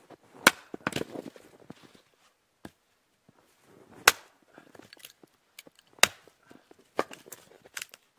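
Hatchet chopping firewood on a stump: sharp wooden strikes, the three loudest about two seconds apart, with lighter knocks and clatter of wood in between.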